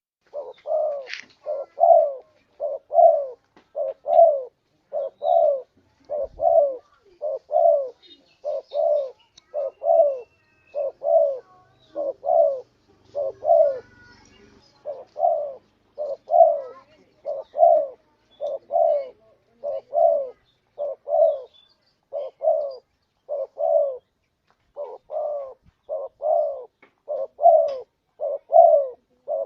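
Spotted dove (tekukur) cooing: a long run of short, repeated coos, about two a second, with a few brief pauses between phrases. This is the call used as a lure (suara pikat) to draw in wild spotted doves.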